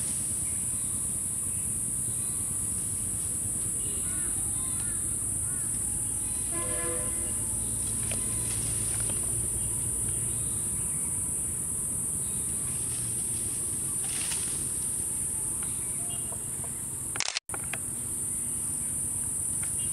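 Outdoor ambience: a steady high insect drone over a low rumble, with one short horn-like toot about seven seconds in. The sound cuts out for an instant a few seconds before the end.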